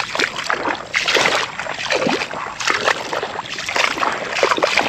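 Shallow tidal water splashing and sloshing in irregular strokes, about two a second.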